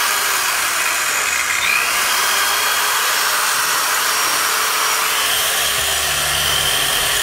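Ryobi corded circular saw with a 160 mm blade running free at full speed, a steady motor whine over the rush of the spinning blade. A lower hum joins about six seconds in.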